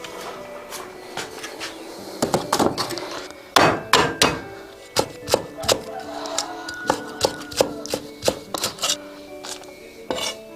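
Kitchen knife chopping on a wooden cutting board: a cluster of loud knocks about two to four seconds in, then steady strokes about two or three a second. Background music runs under it.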